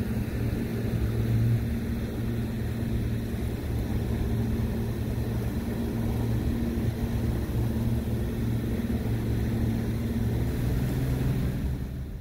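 Motorboat engine running steadily at low speed, a low, even drone.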